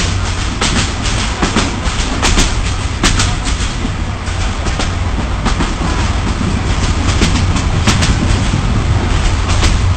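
Passenger train running at speed, heard from inside a carriage: a steady low rumble with sharp, irregular clacks of the wheels over the rail joints.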